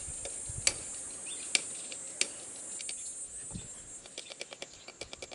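Pincers tapping the back of a knife whose point rests on an ostrich eggshell, chipping a small hole: three sharp taps in the first two and a half seconds. A steady high-pitched drone runs underneath, and a fast run of lighter clicks follows near the end.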